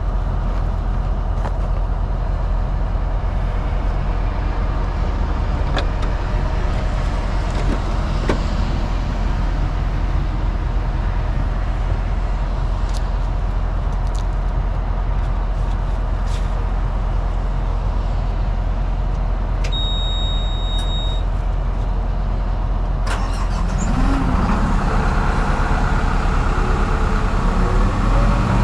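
Heavy diesel machinery engine running steadily. About 20 seconds in there is a short high beep. From about 24 seconds in the sound grows louder, with its pitch rising and falling.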